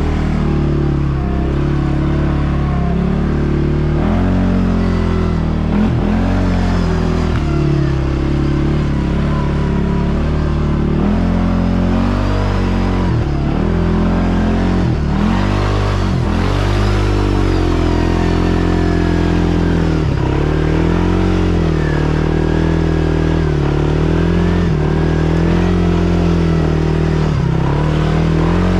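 ATV engine running as it is driven through deep mud, its revs rising and falling over and over as the throttle is worked, with several quick sharp rev changes about halfway through.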